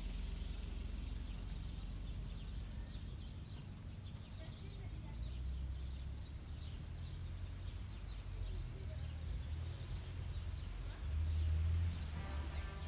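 Outdoor street ambience: a steady low rumble that swells briefly near the end, with many short high chirps of small birds.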